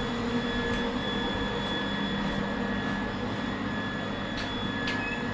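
Workshop machinery running with a steady whining hum, with two faint clicks near the end.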